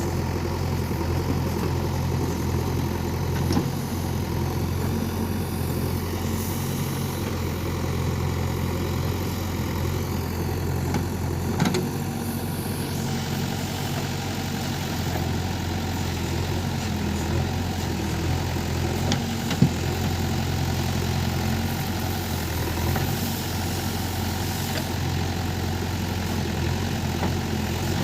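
JCB 3DX backhoe loader's diesel engine running steadily at a low, even speed, with three short sharp knocks spread through it.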